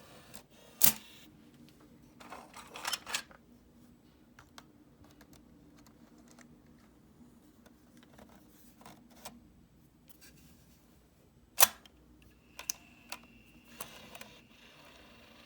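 Sharp plastic clicks and clatter from a Hi8 camcorder's cassette compartment as a Sony V825CLD cleaning cassette is loaded, with one loud click about a second in, a cluster around three seconds and another loud click near twelve seconds. A low steady hum runs underneath, and a faint high whine starts near the end.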